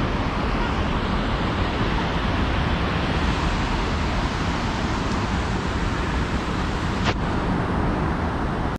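Steady rush of river water flowing over a low dam, with wind rumbling on the microphone. A single click sounds near the end.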